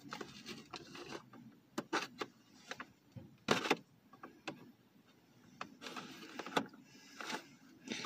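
Faint handling of a cardboard-and-plastic action figure box as it is opened: scattered clicks and taps with a few short rustling scrapes.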